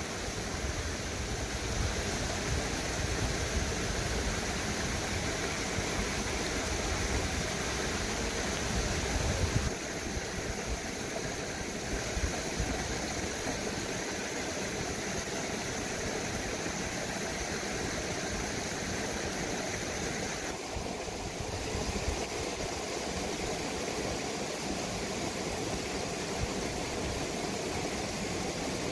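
Steady rushing of a shallow stream flowing over rocks, with an added low rumble for the first ten seconds or so; the sound's character shifts abruptly about ten and twenty-one seconds in.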